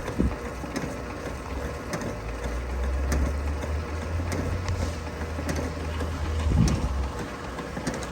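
Sewer drain-cleaning machine running, its spinning cable cutting into a blockage in the sewer line. A steady low hum that grows heavier from about two seconds in to about seven seconds, with scattered clicks.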